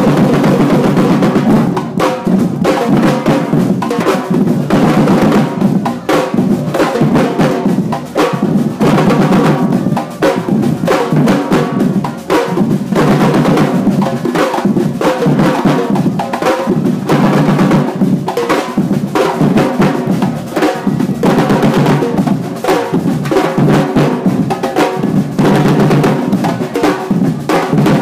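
A Brazilian percussion group's drums, snare and bass drums among them, playing a loud, dense rhythm without a break.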